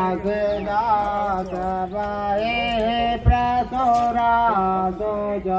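A man singing a folk song unaccompanied by words of speech, in long, wavering held notes that slide between pitches. A short dull thump comes a little past the middle.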